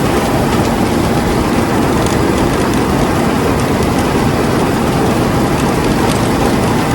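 Rice combine harvester running steadily at close range: a loud, even drone of engine and machinery, heard from on board.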